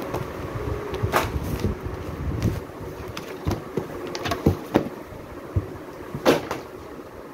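Books being handled in a cardboard box: pages flipped and paper and card covers rustling and knocking against each other in short, irregular bursts. The sharpest rustles come about a second in and just after six seconds.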